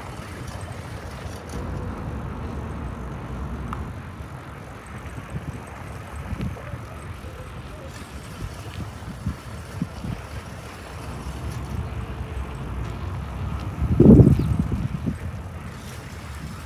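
Wind buffeting the microphone as a low, uneven rumble, with a stronger gust near the end.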